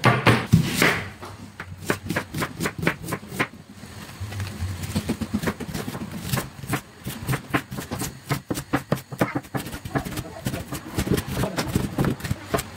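Chef's knife chopping and dicing an onion on a wooden cutting board: quick, uneven knocks of the blade on the board, several a second. A louder burst of sound comes in the first second.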